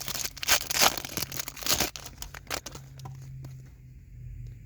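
Foil trading-card pack wrapper torn open and crinkled, loudest over about the first two seconds, then fainter rustling and handling over a low steady hum.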